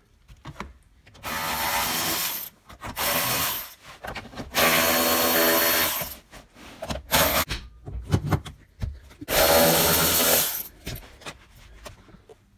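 Cordless drill-driver spinning out 10 mm bolts in short runs: four main runs of one to two seconds each, with a few brief blips between them.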